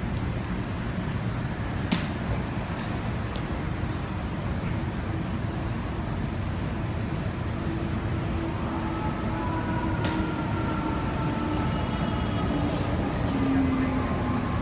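Steady city street traffic rumble with a few sharp knocks. In the second half an engine tone slowly falls in pitch.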